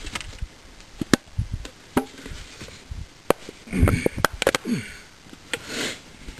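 Plastic bottle target and arrow being handled by hand: a string of sharp clicks and knocks, thickest about four seconds in, with a brief rustle near the end.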